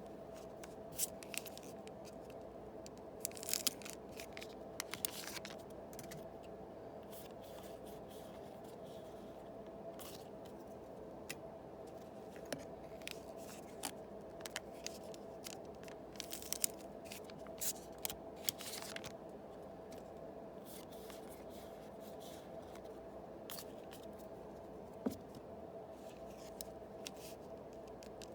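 Yu-Gi-Oh! booster pack foil wrappers being torn open and the trading cards handled: scattered crinkles, rips and small clicks in clusters, over a steady background hum.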